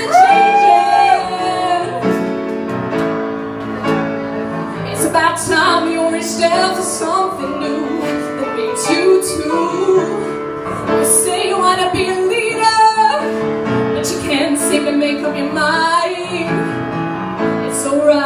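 Live female vocalist singing over piano accompaniment.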